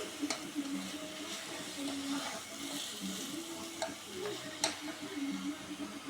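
Beef and vegetables sizzling in a pan, with a few sharp clinks as the food is stirred.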